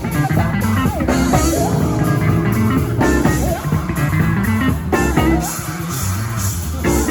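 Loud rock-style music with guitar, bass and drum kit.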